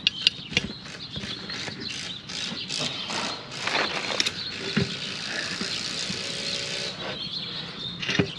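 Screwdrivers prying a soapy riding-mower tire bead over the rim: a run of clicks and knocks of metal on the rim, then a few seconds of rubber and metal scraping and squeaking that stops about seven seconds in, and a sharp click near the end.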